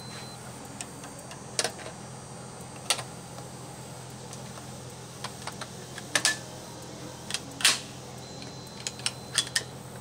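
Irregular sharp clicks, about ten, some in quick pairs near the end, over a steady low hum.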